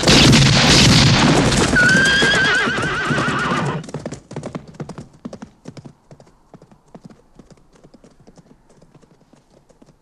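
A loud gunshot from a revolver at the start, then horses galloping with a horse neighing about two seconds in. The hoofbeats drop away after about four seconds and carry on faintly.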